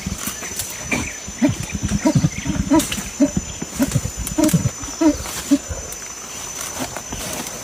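A lion giving a run of short, rough grunts and growls, about two a second, that thin out near the end.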